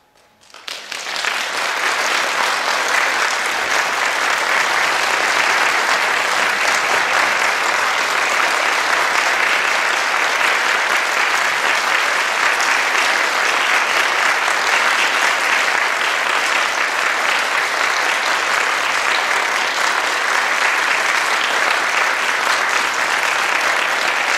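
Concert hall audience applauding: the clapping breaks out about half a second in, builds within a second, and then holds steady and dense.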